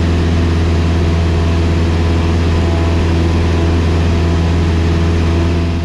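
Cessna 172's piston engine and propeller running steadily in flight, heard inside the cabin as a loud, even drone with a strong low hum.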